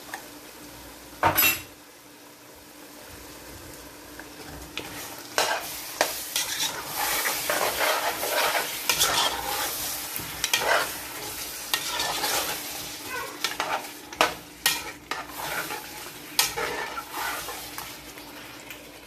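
Meat, onion and tomato stew sizzling in a pot while a spoon stirs it, scraping and clattering against the pot from about five seconds in. A single loud knock comes about a second in.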